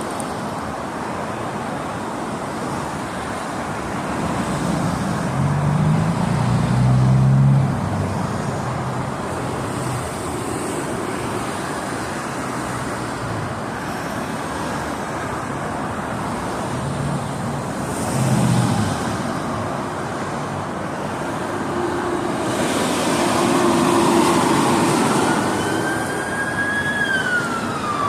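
Steady freeway traffic noise of vehicles passing. Near the end a police siren begins to wail, rising and then falling in pitch.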